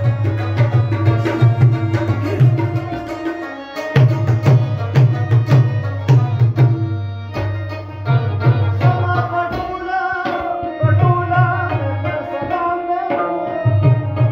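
Live tabla and harmonium music: the tabla plays a rhythm of deep bass strokes and sharper treble strokes in phrases with short breaks, over the harmonium's sustained reedy notes.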